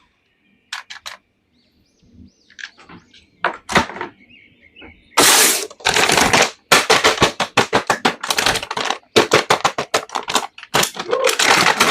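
Plastic toy packaging crinkling and crackling as it is handled and torn open: a few scattered crackles at first, then dense crackling from about halfway through.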